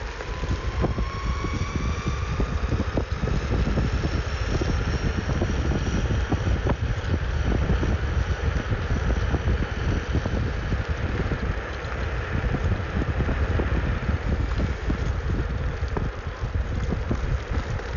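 Wind buffeting the microphone over the steady rumble of wheels rolling on asphalt while riding electric boards, with a faint electric motor whine rising in pitch over the first few seconds.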